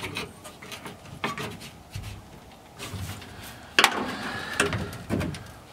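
Screwdriver prying at a stuck rubber fuel filler hose on a metal fuel tank: irregular scrapes and clicks, with a sharper knock nearly four seconds in.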